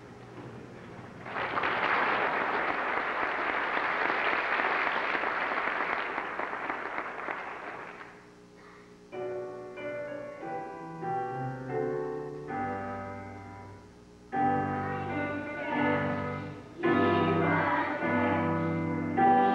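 Audience applauding for several seconds as a children's choir song ends, then fading. About nine seconds in, an instrumental introduction begins: chords on a keyboard instrument, changing every second or two and louder near the end.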